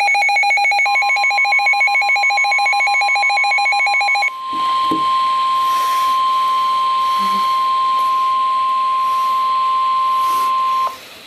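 Emergency Alert System warning tones. For the first four seconds a rapid warbling two-pitched alert tone sounds together with a steady tone near 1 kHz, the weather-radio warning alarm tone. That steady tone then carries on alone over radio hiss and cuts off sharply near the end.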